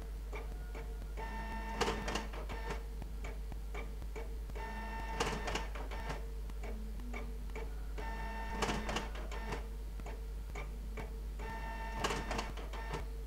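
Electronic background music built on a loop of fast, mechanical-sounding ticks and clicks over held tones and a steady low hum, with a louder burst of clicks about every three and a half seconds.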